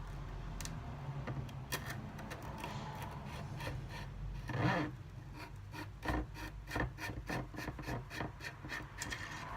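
Braided clutch line being worked by hand into a hose fitting: a scratchy rubbing with many small clicks, and one louder scrape about halfway through.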